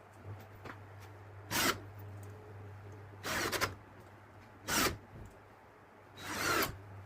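Four short scraping rubs on wood during door-hinge fitting, the second and fourth drawn out longer, over a steady low hum.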